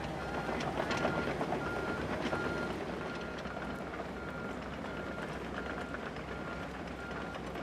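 A vehicle's reversing alarm beeping evenly, about three beeps every two seconds, over a running engine at a rescue work site, with scattered knocks and clatter.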